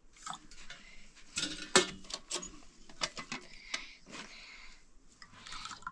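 A series of irregular clicks and knocks, like small hard objects being handled, with the sharpest knock just under two seconds in.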